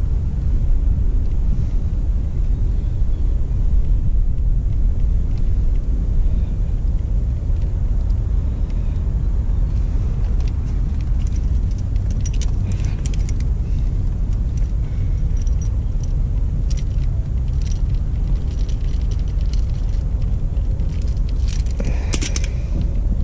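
Light clicks and rustles of wiring and small plastic crimp connectors being handled, over a steady low rumble. A brief, louder rustle and click come about a second before the end.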